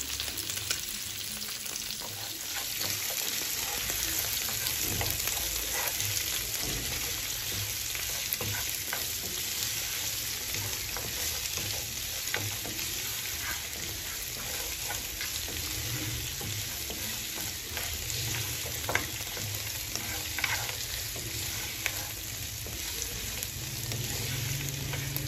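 Boiled beef pieces and freshly added sliced red onion sizzling in hot oil in a nonstick frying pan, with a steady hiss. A wooden spatula stirring them scrapes and taps against the pan now and then.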